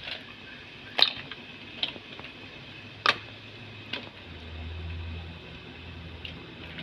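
Seafood being added to a cooking pot: a few sharp clicks and knocks, one to two seconds apart, over a steady faint hiss.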